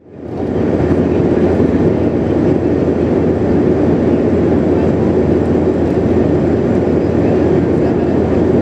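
Steady cabin roar of a Bombardier CRJ700 airliner: airflow and its rear-mounted turbofan engines, heard from inside the cabin. It fades in during the first half second and then holds level.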